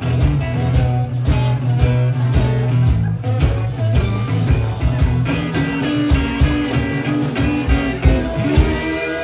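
Live blues band playing: resonator guitar, drum kit and harmonica, over a steady drum beat.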